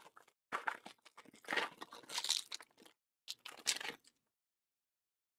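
Clear plastic cellophane wrapper being torn and crinkled off a stack of trading cards, in several bursts that stop about four seconds in.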